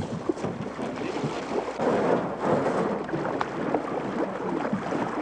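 Water splashing and sloshing with irregular knocks as loaded canoes are pushed off from shore and paddled away.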